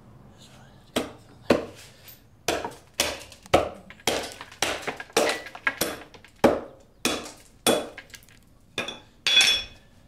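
A series of about fifteen sharp knocks, unevenly spaced and sometimes coming in quick pairs, with the last one near the end ringing brighter and more metallic.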